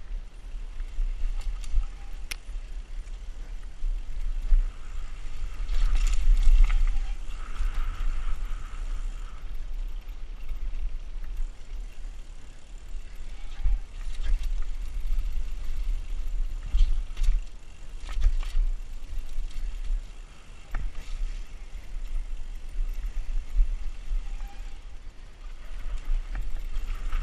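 Mountain bike descending rough forest singletrack at speed. Wind buffets the bike-mounted camera's microphone in a steady rumble, under scattered knocks and rattles from the bike over the bumpy ground.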